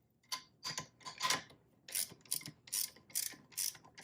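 Ratchet wrench clicking in short repeated strokes, about three a second, as bolts on a Suzuki LTZ 400 engine are snugged down ahead of torquing.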